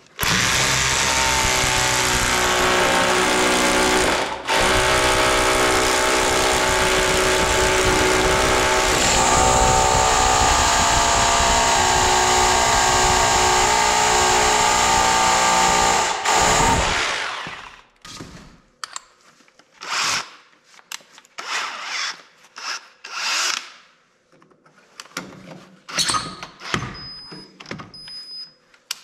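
Corded drill with a long masonry bit running under heavy pressure, boring through a workbench's steel plate. It runs steadily for about sixteen seconds, with a brief stop about four seconds in, then winds down. After that come scattered short clicks and knocks.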